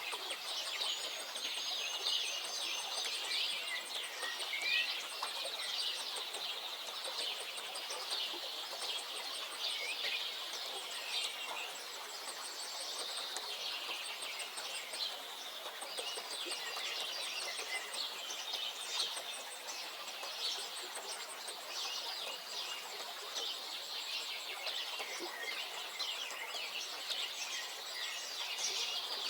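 Several songbirds chirping and singing together without a break, over a soft steady background hiss. Short runs of very high, fast ticking repeat about once a second.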